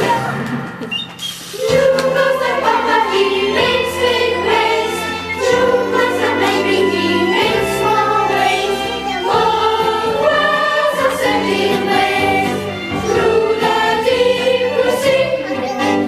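A group of small children singing a song together over a steady musical accompaniment. The singing breaks off briefly near the start and picks up again about two seconds in.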